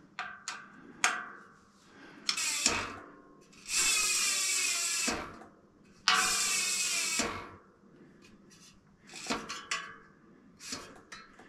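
A hand ratchet tightening a bike's disc-brake caliper mounting bolts: a few single clicks in the first second, then repeated runs of fast ratcheting clicks, each about a second long, as the handle is swung back between turns.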